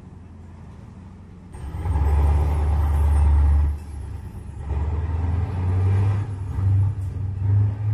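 Mining haul truck's diesel engine rumbling low while towing a second haul truck: quiet at first, then loud from about a second and a half in, easing briefly near four seconds before building again.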